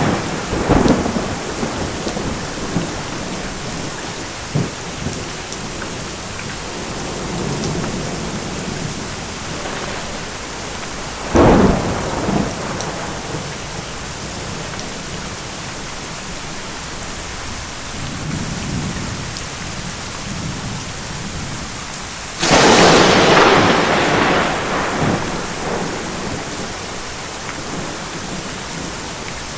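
Thunderstorm: steady heavy rain, with a sharp thunder crack about eleven seconds in and a louder thunderclap about twenty-two seconds in that fades over a few seconds, and softer low rumbles in between.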